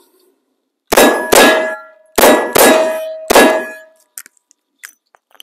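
Five shots from a five-shot J-frame revolver, fired as two quick pairs and then a single, each answered by the ringing of a steel target. The last ring dies away about four seconds in, followed by a few faint clicks as the revolver is handled.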